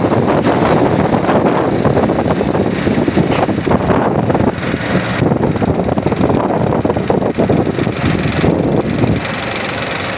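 Large bus diesel engine running close by, a steady rough rumble that eases slightly near the end; no horn sounds.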